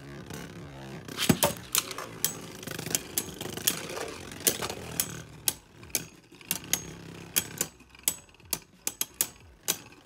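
Beyblade spinning tops clashing inside a plastic stadium: sharp irregular clicks and clacks as they hit each other and the wall, over a low spinning whir that fades in the first second. The hits come further apart toward the end.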